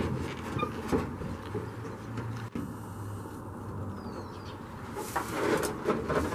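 Jeep hood being handled and lifted off: a sharp knock at the start and another about a second in, then a longer scraping, rustling stretch about five seconds in as it comes free. A short bird chirp about four seconds in.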